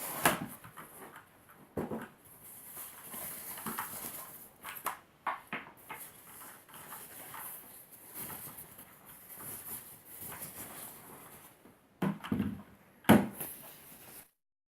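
Handling noise around a mechanical keyboard and its packaging: scattered clicks, light rustles and knocks, with two louder knocks near the end.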